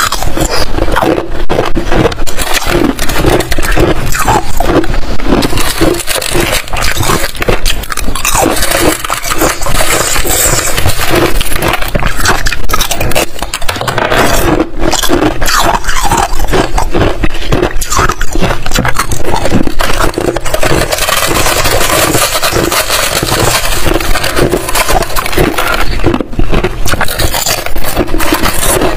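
Chips of hard balloon ice crunched and chewed between the teeth close to the microphone, many sharp crunches in quick succession.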